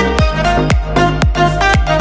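Background music with a steady electronic beat, about two beats a second, over layered melody notes.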